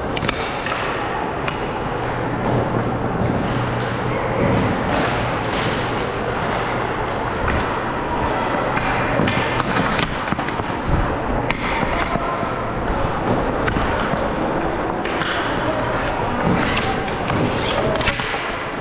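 Dek hockey being played: repeated sharp knocks and thuds of sticks hitting the ball and the ball hitting the boards, over a steady background of play.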